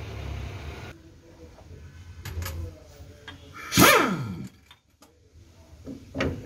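A hand-held impact wrench fires briefly about four seconds in, its pitch falling steeply as it spins down, while the truck's propeller shaft and universal joint are being worked on. Short metal clanks from the shaft come before and after it.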